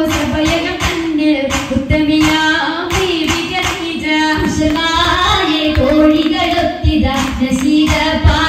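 Oppana song: a Mappila-style melody sung by high voices, with the dancers' steady rhythmic hand clapping.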